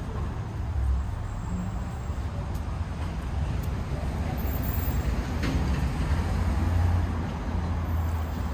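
Motor traffic on a city street: a low, steady engine rumble that grows a little louder about seven seconds in, with one sharp click about five and a half seconds in.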